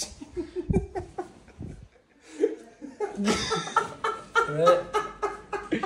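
People laughing and chuckling, mixed with a little speech, with a short pause about two seconds in.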